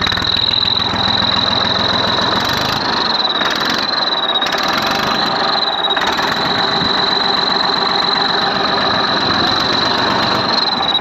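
Massey Ferguson 1035 diesel tractor engine running with a loud, steady high-pitched whistle like a turbo whistle over it, which rises slightly in pitch a few times.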